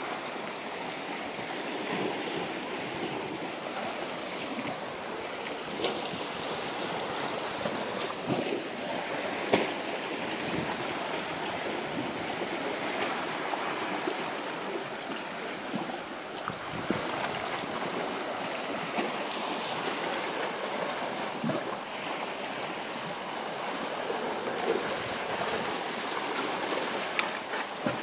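Small sea waves washing and lapping against shoreline rocks: a steady wash of water with occasional sharper splashes.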